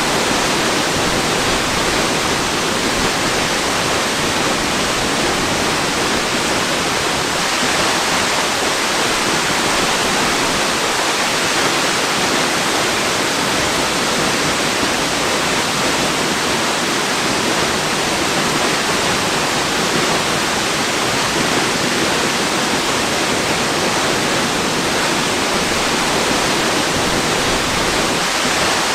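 Waterfall: water falling in a steady, unbroken rush, with no change in level throughout.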